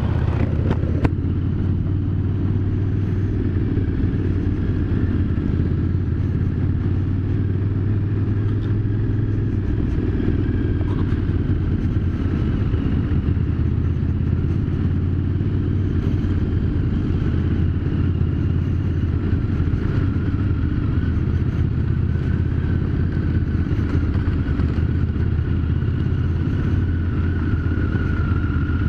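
Aprilia Caponord 1200 Rally's V-twin engine running at a steady, low cruising speed, mixed with a steady wind rumble on the helmet-mounted camera. A single short click comes about a second in.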